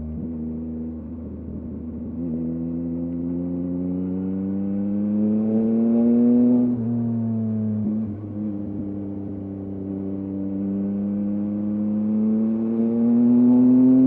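2023 Yamaha MT-09's three-cylinder engine through a LeoVince LV Race exhaust, accelerating under load. The note rises, drops with an upshift about seven seconds in, then climbs and gets louder again near the end.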